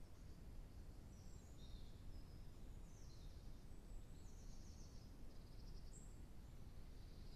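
Faint songbird calls: a string of short, high chirps and quick trills, over a steady low background rumble.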